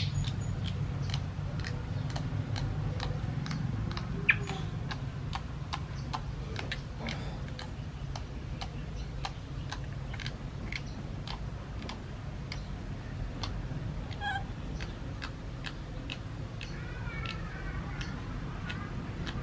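Regular ticking, about two ticks a second, over a steady low hum. Near the end a baby macaque gives a few short, high squeaks.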